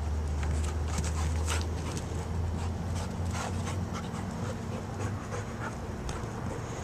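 Strong wind rumbling on the microphone, easing somewhat about halfway through, with a dog panting in short, irregular breaths over it.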